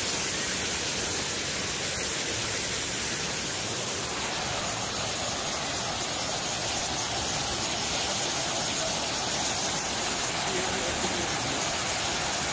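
Artificial rock waterfall pouring into a pool: a steady rush of falling water.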